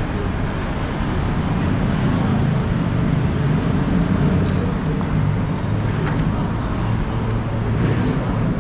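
City street traffic with a motor vehicle's engine running close by, a steady low rumble throughout.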